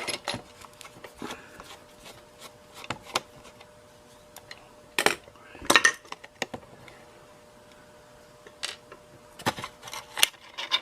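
Scattered metallic clicks and clinks of a hand tool and small screws against a radio's metal chassis as the speaker's mounting screws are undone, about eight separate knocks, the loudest a pair around five to six seconds in.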